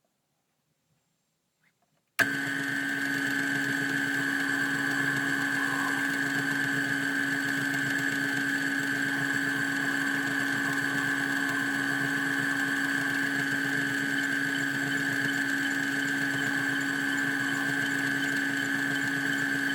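Near silence for about two seconds, then a metalworking lathe's sound cuts in suddenly and runs steadily: a constant hum with a higher whine over a rough mechanical noise.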